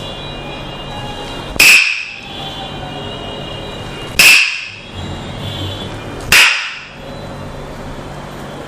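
Tok sen massage: a wooden mallet knocks on a wooden stick three times, about two to two and a half seconds apart. Each knock is sharp and rings briefly.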